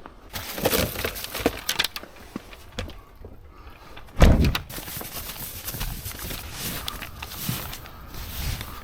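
Footsteps crunching through fresh snow, heard as irregular crackling steps, with one loud low thump about four seconds in.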